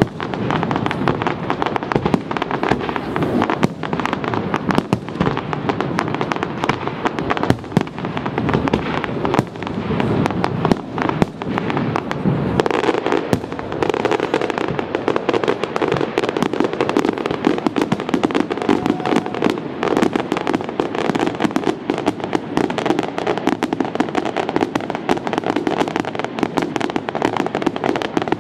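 Fireworks display: aerial shells bursting one after another in a dense, unbroken run of bangs and crackling.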